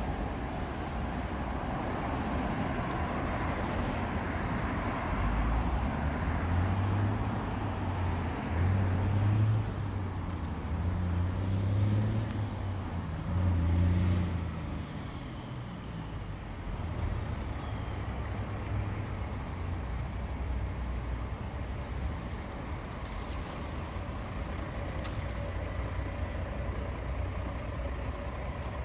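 Street traffic passing on a busy road, with a heavy vehicle's engine rumbling loudest for several seconds in the first half, then a steadier background traffic noise.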